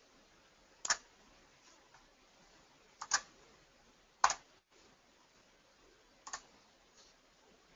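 Scattered single clicks of a computer mouse, about five over several seconds, two of them in quick succession near the middle like a double-click.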